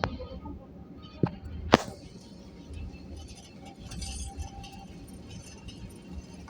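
Airliner cabin noise while taxiing: a steady low engine and cabin rumble, with three sharp clicks or knocks in the first two seconds, the last of them the loudest.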